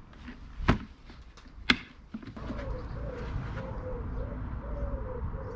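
Two sharp clicks about a second apart as the plastic parts of a lawnmower grass collection box are snapped together by hand. After them a bird calls in the background with a low, wavering note repeated again and again.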